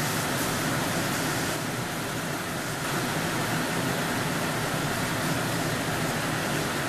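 Chana dal pakoda dough deep-frying in hot oil in a wok: a steady sizzle.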